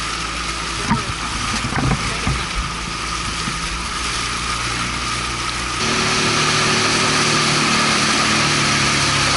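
Outboard motor of a small launch running steadily under way, with water rushing past the hull and wind on the microphone; a few knocks in the first few seconds, and the motor gets louder about six seconds in.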